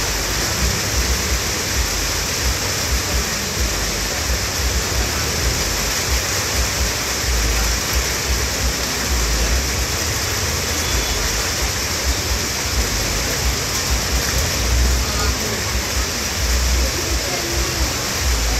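Heavy rain falling steadily: a dense, even hiss, with an irregular low rumble underneath.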